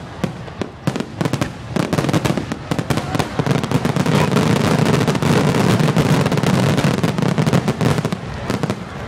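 Firework going off with a rapid, continuous crackling. The crackle thickens and grows louder about two seconds in, then thins out near the end.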